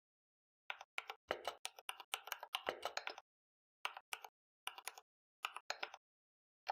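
Keys tapped on a computer keyboard as a line of BASIC is typed: a quick run of keystrokes for about two and a half seconds, then a few short groups of clicks.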